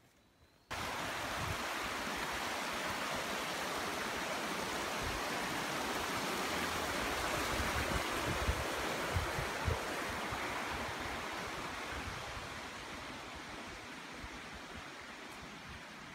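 Brook rushing under a wooden footbridge, a steady even hiss of running water that starts abruptly about a second in and fades gradually over the last few seconds.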